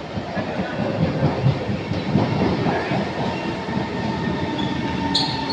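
SMRT C151 train arriving, its cars rushing past the platform screen doors with a loud rumble and clatter of wheels on rail. A steady whine from its GTO chopper traction equipment joins about four seconds in.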